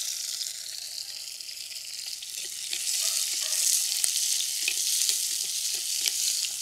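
Small onions (shallots) sizzling as they fry in hot coconut oil in a clay pot, stirred with a slotted metal spoon that makes light scraping ticks against the pot. The sizzle grows louder about three seconds in.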